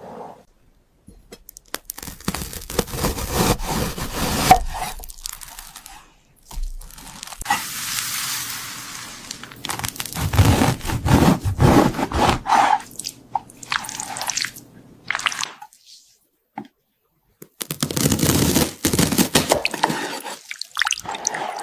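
Knife slicing through food, close up: crunching and scraping with wet, squishing sounds, in several separate takes broken by short silent gaps.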